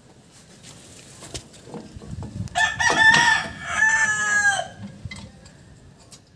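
A rooster crowing once, a call of about two seconds starting about two and a half seconds in. Faint clicks from the brake parts being handled come and go around it.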